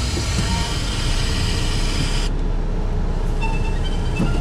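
Inside an SUV's cabin driving across sand flats on aired-down tyres: a steady low rumble of engine and tyres, with a loud hiss over it that cuts off suddenly about two seconds in. Faint music from the car stereo starts a little after three seconds in.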